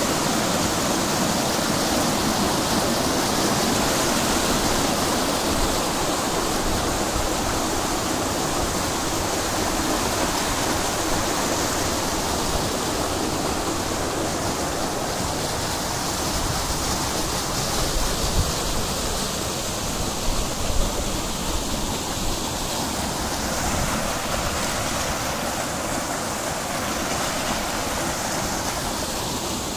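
Water running and splashing down the stone steps of a garden cascade, a steady rushing sound.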